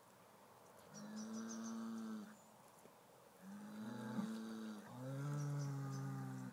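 Bull mooing: three drawn-out calls, the second and third nearly back to back, the last one lower-pitched.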